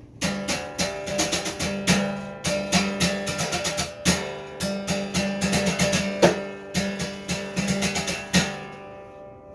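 Music of strummed guitar chords in a quick steady rhythm, starting suddenly and ending on a last chord that rings out and fades.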